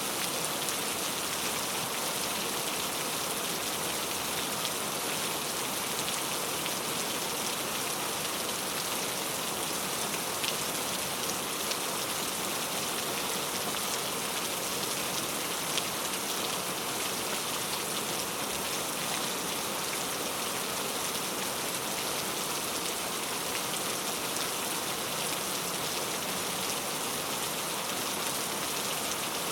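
Steady rain falling on a surface, an even hiss of drops that does not change.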